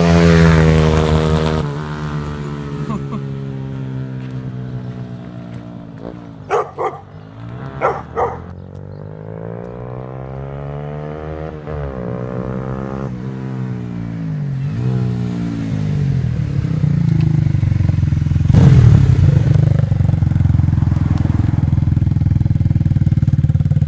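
Honda CBR125R single-cylinder four-stroke with an aftermarket Devil exhaust, passing close at the start, then riding away and back, its engine note rising and falling over and over. From about three-quarters of the way in it runs steadily close by. A few short sharp sounds cut through about a quarter of the way in.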